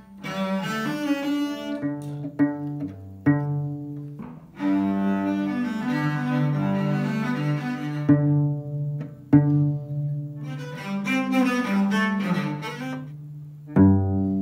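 Cello played with a bow: a melody of held notes, several starting with a sharp attack.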